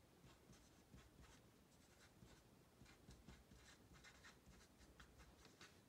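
Faint, quick strokes of an Expo dry-erase marker writing on a whiteboard.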